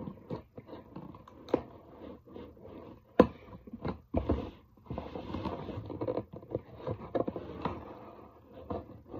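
Scraping and scratching at a cardboard shipping box with a small handheld tool, working at it to get it open, broken by irregular sharp clicks and knocks, the loudest about three seconds in.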